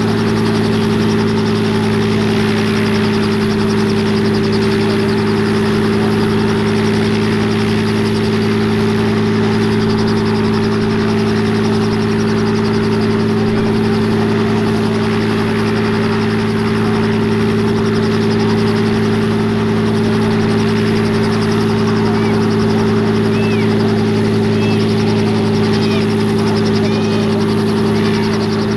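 Robinson R44 Raven II helicopter running on the ground before lift-off, its Lycoming IO-540 flat-six engine and turning main rotor giving a loud, steady hum that does not change.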